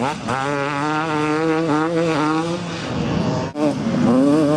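Two-stroke motocross bike engine running at steady high revs, easing off about three seconds in, then held steady again after a brief break.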